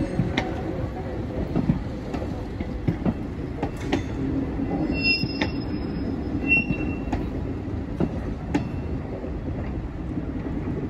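Sorefame stainless-steel passenger coaches rolling slowly through a yard, their wheels clicking irregularly over rail joints and points under a steady low rumble. Two brief wheel squeals come about halfway through.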